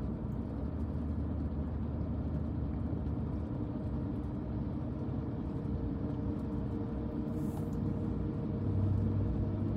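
Car driving at steady speed on a paved road, heard from inside the cabin: a steady low hum of engine and tyre noise, a little louder near the end.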